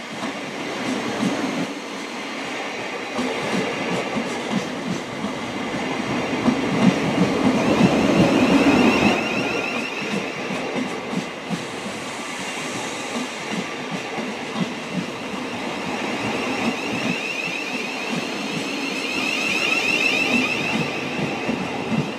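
Thameslink Class 700 (Siemens Desiro City) electric multiple unit arriving slowly at a terminus platform, its wheels clicking over rail joints as the carriages pass. A high whine grows through the second half as the train slows.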